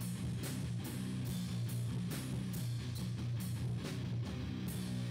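Background rock music led by guitar, with a steady beat.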